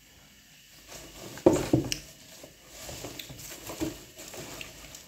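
Handling noises while working in a kitchen: a sharp knock about a second and a half in, then scattered light clicks and clatter.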